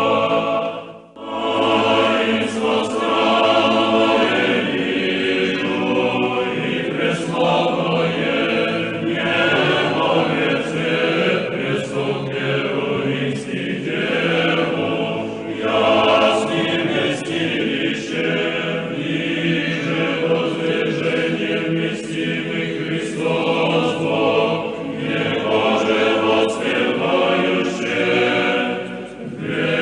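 Church choir singing Orthodox chant in Church Slavonic, with a brief pause about a second in before the singing goes on.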